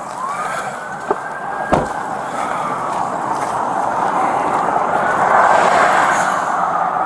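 Highway traffic passing, a steady rush that swells to a peak a few seconds in. A single sharp thump about two seconds in, a patrol car door shutting.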